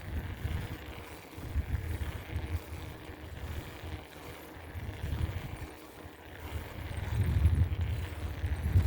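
Riding noise from a moving bicycle: a low, uneven rumble that grows louder about seven seconds in.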